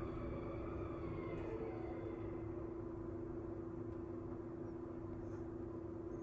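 Mitsubishi ELEPAQ Advance V elevator running: a steady low hum with a constant mid-pitched tone.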